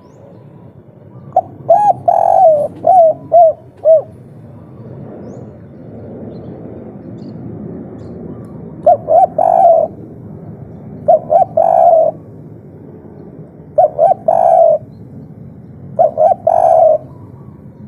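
Spotted dove (tekukur) of the 'kuk 3' type cooing in five phrases of several short coos each, with a long pause from about 4 s to 9 s, over a steady low background hum.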